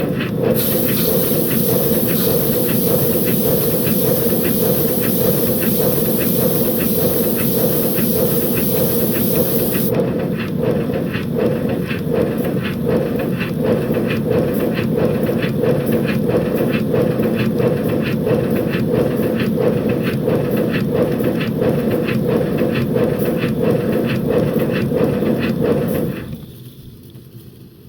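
5-inch gauge BR Class 9F model locomotive running on a rolling road, with rapid, even exhaust beats and a high hiss that stops about ten seconds in. The sound drops away abruptly near the end.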